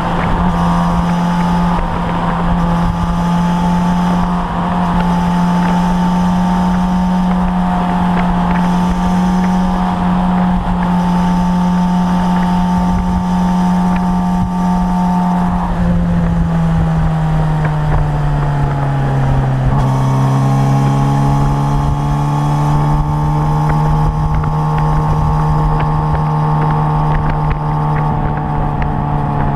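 Suzuki GSR 600's inline-four engine running at steady revs; its pitch falls about sixteen seconds in and settles lower by about twenty seconds in.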